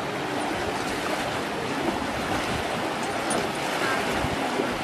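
Steady rushing of floodwater, with faint voices underneath.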